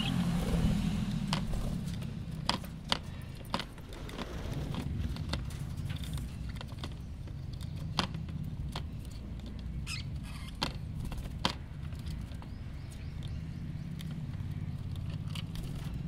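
Budgerigars pecking and tapping at a mineral stone and clay dish: scattered sharp clicks, a few close together, over a steady low hum.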